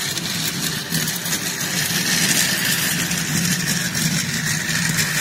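Mini Motor Train gacha toy train running at medium speed on its plastic track: the steady whir and rattle of its small 3 V motor, driven from a 1.5 V battery through a step-up circuit.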